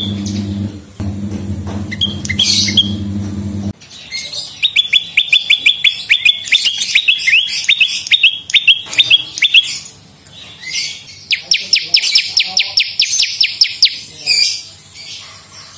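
Prenjak lumut singing. It gives long runs of sharp, high chirps repeated about five times a second, then a faster trill near the end. A low steady hum sits under the first few seconds.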